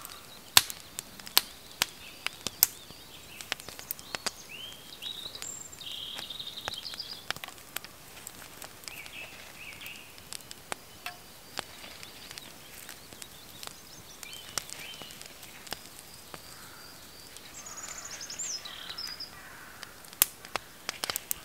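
Small wood campfire crackling, with sharp irregular pops, the loudest about half a second, one and a half, two and a half and twenty seconds in. Small birds chirp now and then in the background.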